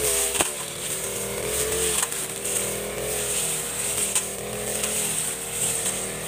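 Backpack brush cutter's two-stroke engine running at cutting speed as it mows tall grass, its pitch rising and falling slightly with the load. A few sharp ticks cut through, the loudest about half a second in.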